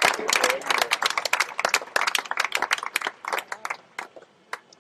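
Tennis spectators applauding, many hands clapping at once. The clapping thins to a few scattered claps and dies away about four seconds in.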